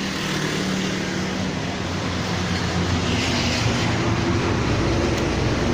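Steady road-traffic noise with a motor vehicle's engine running close by, its low hum growing a little louder over the last couple of seconds.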